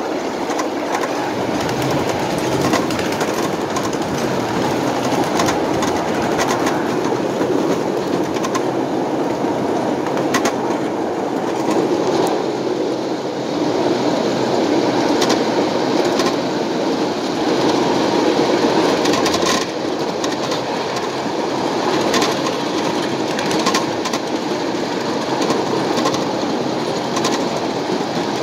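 Long train of empty ride-on-scale coal hopper cars rolling steadily over the track, a continuous rumble broken by irregular clickety-clack clicks as the wheels pass the rail joints.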